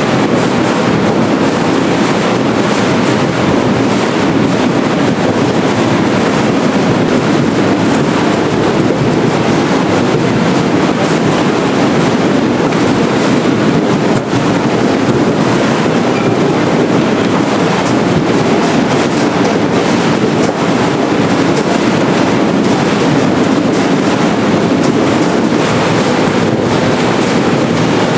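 Seed potato cutting line running steadily, its elevator and chain-roller conveyor carrying potatoes that tumble and knock against the metal: a loud, continuous mechanical rattle made of many small clicks.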